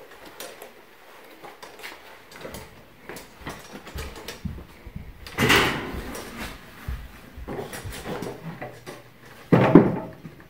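Wooden stud wall frame being handled and set onto its bottom plate: scattered wood knocks and bumps, with two louder thuds, one about halfway through and one near the end.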